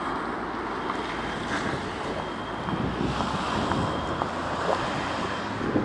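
Wind buffeting the camera's microphone, a steady rumbling hiss, over the noise of street traffic.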